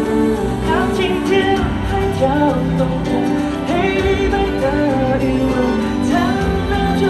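Male singer singing a slow pop ballad live into a microphone over band accompaniment, picked up from the audience in a concert arena.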